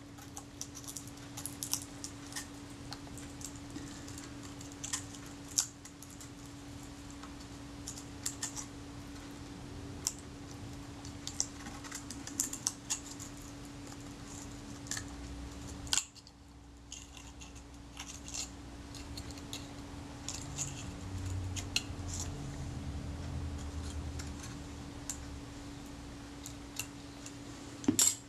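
Scalpel blade prising the leatherette covering off a Kodak Retinette II camera body: irregular small ticks and scrapes over a steady low hum.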